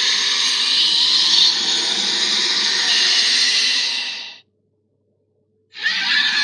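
A harsh, noisy creature sound effect that fades out about four seconds in; after about a second and a half of silence, another starts abruptly.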